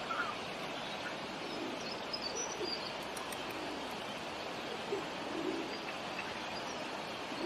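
Steady outdoor river ambience with a few soft, low bird calls scattered through it and faint high chirps of small birds about two to three seconds in.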